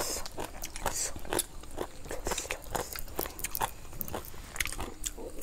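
Close-up chewing and crunching of crisp raw leafy vegetables eaten with papaya salad, a run of short irregular crunches several times a second.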